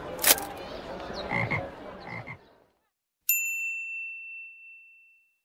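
Toad croaking sound effect, a few low croaks, then after a short silence a single bright bell ding about three seconds in that rings and fades: the page-turn chime of a read-along picture book.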